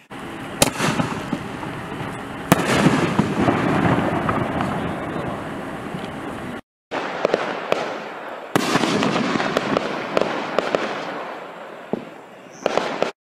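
Bursts of 6-inch canister firework shells: several sharp bangs with a dense spread of smaller pops and crackle between them. The sound cuts out briefly a little past halfway, then more bangs and crackle follow before it stops abruptly near the end.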